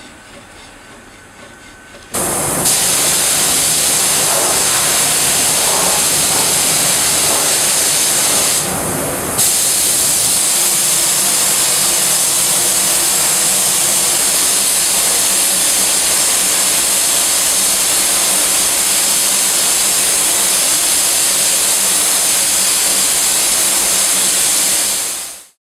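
Compressed-air paint spray gun hissing steadily while spraying, starting suddenly about two seconds in, with a short break about nine seconds in, and fading out at the end.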